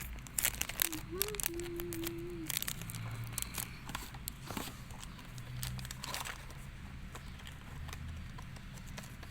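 Paper crinkling and rustling with scattered clicks and taps as a hand-drawn paper blind box is handled and opened. A short hummed note sounds about a second in.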